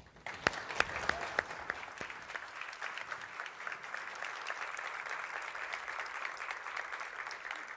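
Audience applauding: many hands clapping, with a few louder single claps in the first second or two, then a steady, even patter.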